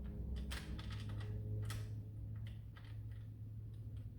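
A few separate sharp plastic clicks and knocks as toy blaster kit parts are handled and fitted together, over a steady low hum.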